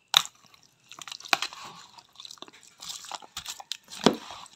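Raw fish and chopped vegetables being tossed together with a spoon in a bowl: irregular wet crunches, squelches and sharp clicks.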